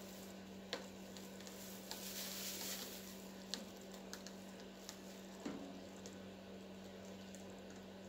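Quiet room tone with a steady low-pitched hum, broken by a few faint soft clicks and taps from plastic-gloved hands handling a paint cup during a paint pour.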